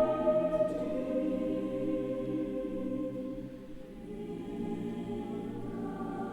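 Concert choir singing slow, held chords. The sound fades away over the first few seconds, then a softer chord comes in about four seconds in.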